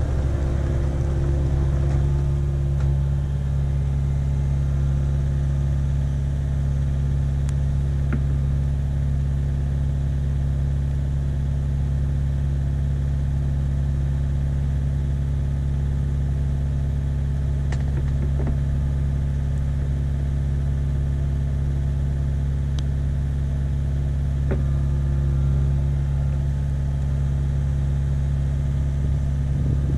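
Kubota KX057-5 excavator's diesel engine running steadily at an even speed, with a few faint knocks over it.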